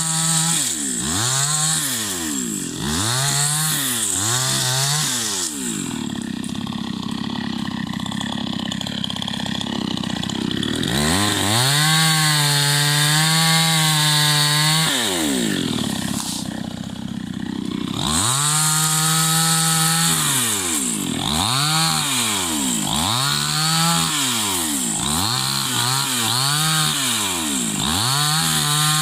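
Chainsaw engine revving up and down in quick repeated throttle bursts, with two longer stretches held steady at high revs, while the saw cuts through tree wood.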